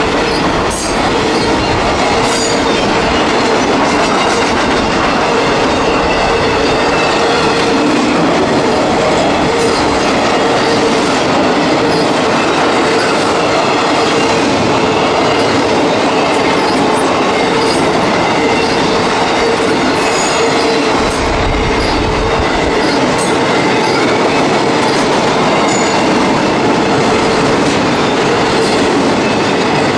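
Double-stack container freight train passing close by at speed: a loud, steady rolling rumble and rattle of wheels on rail and well cars, with a steady tone running through it.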